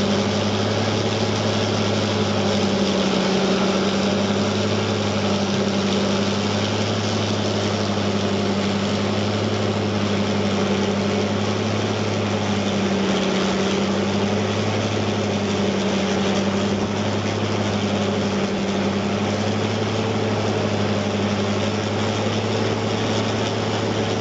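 Rotochopper MC266 grinder running steadily while processing slash, a deep, even engine hum that holds one pitch and level throughout.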